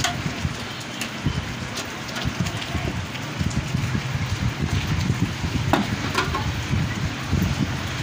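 Handling noise: a steady crackling rumble with a few small sharp clicks as fingers work the wire connectors inside an opened microwave oven.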